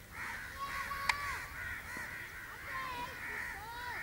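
Birds calling in a loose chorus: short, arched, harsh calls overlapping several times a second. A single faint click comes about a second in.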